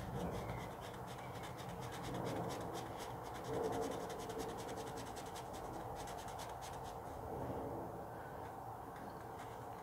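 Pen scratching across sketchbook paper in many short, quiet strokes while drawing.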